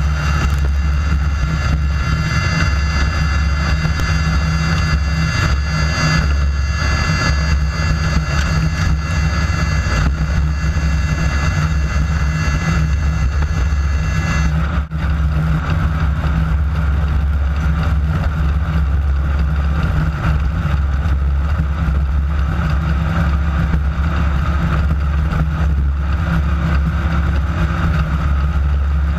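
Class 9 desert race buggy's air-cooled VW engine running hard and steady under the onboard camera, a loud continuous drone mixed with rough chassis and terrain noise. A thin high whine rides over it and cuts off about halfway through.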